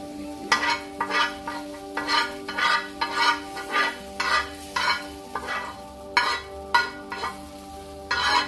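Metal spoon scraping fried cumin seeds off a tawa into a pot of curry in quick, repeated strokes, about two a second, with the hot tempering oil sizzling.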